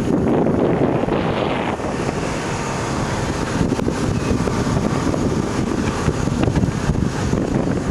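Wind buffeting the microphone in a steady, loud rumble, masking whatever else is around.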